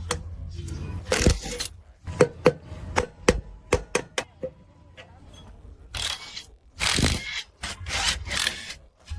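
Irregular sharp clicks and knocks of metal parts or tools being handled, over a low steady hum for the first second or two.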